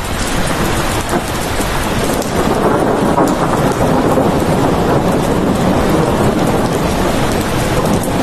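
Heavy rain falling steadily. From about two seconds in, a low rumble of thunder swells under it and holds.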